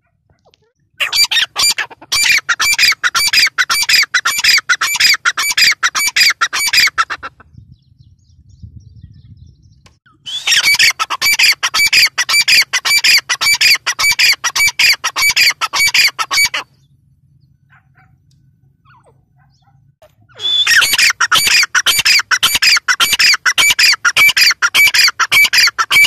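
Grey francolin (teetar) calling: three long bouts of loud, harsh notes repeated quickly and evenly, about three a second, with pauses of a few seconds between the bouts.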